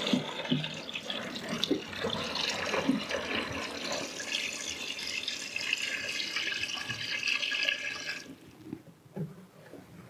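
Water pouring from a jerry can into the plastic wash tub of a small portable twin-tub washing machine holding wet clothes, filling it for the rinse cycle. The pour stops about eight seconds in.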